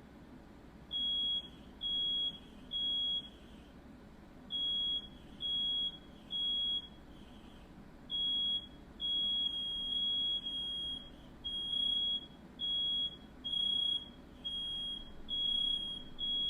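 Smoke alarm sounding: high-pitched beeps in groups of three, each group followed by a short pause. From about nine seconds in, the beeps crowd together into nearly continuous beeping.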